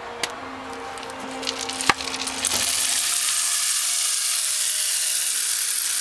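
Bamboo rainstick being tipped up: a couple of sharp knocks from handling, then, about two and a half seconds in, its fill starts cascading down inside the tube as a steady, rain-like hiss.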